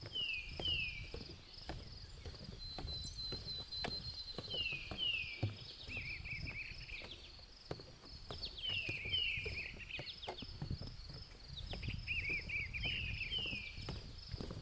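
Forest birds singing: pairs of falling whistled notes about every four seconds, some followed by quick warbles, over a steady high insect drone. Footsteps tap on a wooden boardwalk throughout.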